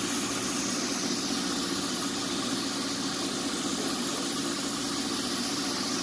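Air compressor running steadily with a fast, even pulse, supplying a handheld spray gun. The spray gun's air hiss is strongest about the first half-second and comes back near the end as it sprays mist onto the part.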